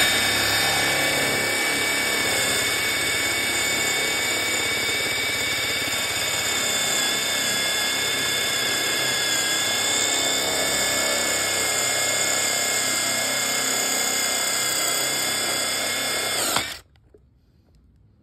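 Ingco 400 Nm brushless cordless impact wrench, fitted with a drill bit, boring into concrete: a loud, steady whine that runs for about sixteen seconds and then stops abruptly.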